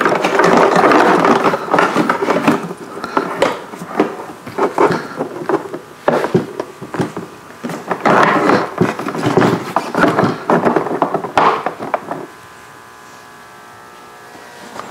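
Hard plastic center-console trim being handled as USB and RJ45 extension cords are fed through and their sockets pressed into cut-outs: repeated knocks, clicks and cable rubbing on plastic. The handling stops about three seconds before the end, leaving only a faint steady hum.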